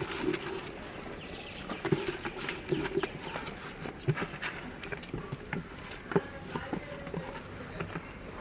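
Irregular clinks and knocks of metal cooking utensils against a pot as the measured rice is added to the boiling water for biryani.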